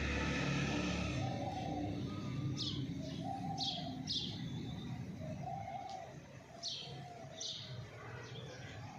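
The end of an aseel rooster's crow fades out in the first second. Then other birds carry on: a handful of quick downward chirps and several short, low cooing notes.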